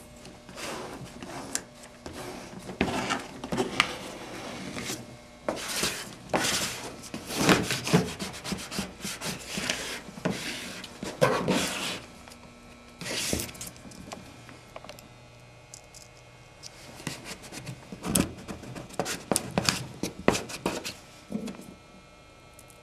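Plastic squeegee rubbing and scraping over paper application tape, pressing it down onto a curved panel in irregular strokes to smooth it and push out the bubbles. The strokes die down for a few seconds past the middle, then pick up again.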